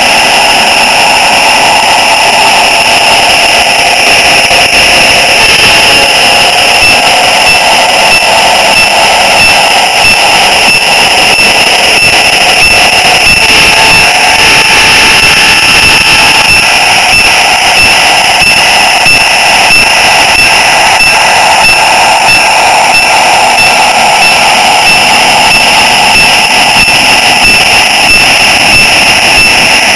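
Model train running under an onboard camera: a loud, steady mechanical whine and rumble from the locomotive's motor, gearing and wheels on the rails. Light clicking joins in partway through as the train rolls over turnouts.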